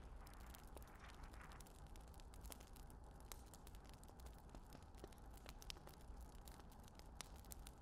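Near silence: a faint outdoor background hiss with scattered light clicks.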